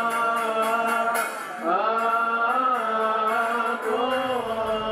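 Coptic Easter liturgical hymn being chanted: voices hold long notes that slide between pitches over a steady low tone.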